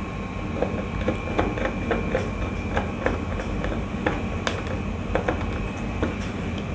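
Screwdriver working the terminal screws of a magnetic contactor, with small irregular clicks and ticks of metal and plastic as the wire is fastened, over a steady background hum.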